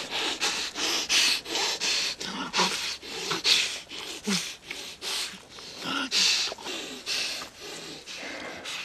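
Heavy, rapid panting and snorting, short ragged breaths about two or three a second.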